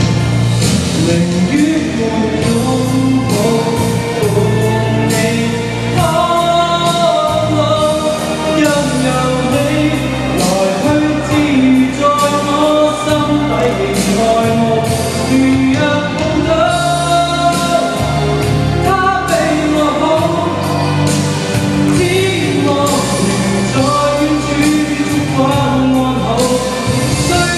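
A man sings a Chinese pop song into a handheld microphone over a recorded backing track with a steady beat. The opening seconds are instrumental, and his voice comes in about six seconds in.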